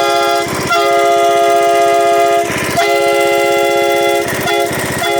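A train horn, a multi-chime air horn fed from an air tank at 35 PSI, blown through a hand valve: a loud chord of several held tones, cut into long blasts by three short breaks, about half a second in, about two and a half seconds in, and between four and five seconds in.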